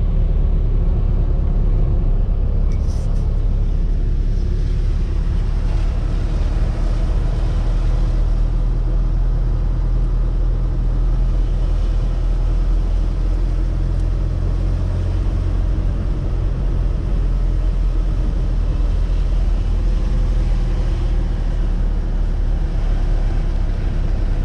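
A car on the move, giving a steady low rumble of engine and road noise.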